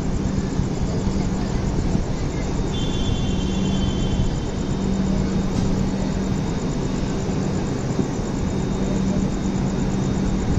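Steady rumble and hum of a train heard from a coach door, the train standing or barely creeping. A low hum swells and fades, and a brief high tone sounds about three seconds in.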